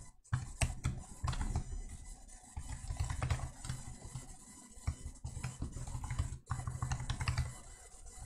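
Typing on a computer keyboard: irregular runs of key clicks, with a low rumble under the keystrokes.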